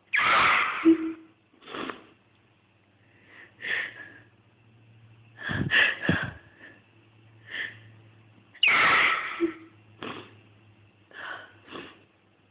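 A person sneezing in a fit brought on by sniffing pepper: two loud sneezes, one at the start and one about two thirds of the way through, with smaller sniffs and short breaths between and after them.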